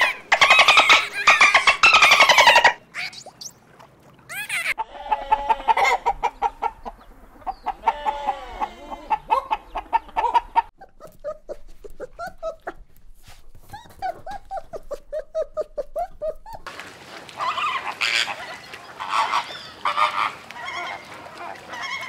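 A run of animal calls. First, loud bottlenose dolphin whistles and click trains for about three seconds. Then, after a short pause, a corgi puppy's string of short, high whines and yips that bend in pitch. In the last five seconds a flock of flamingos honks.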